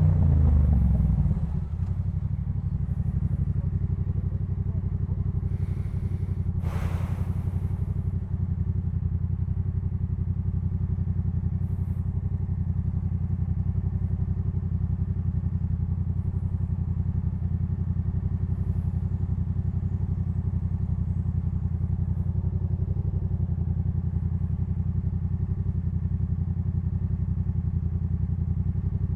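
Yamaha MT-07's parallel-twin engine through a Jeskap K4 full exhaust, its revs falling in the first second or so and then idling steadily. A brief rushing noise about seven seconds in.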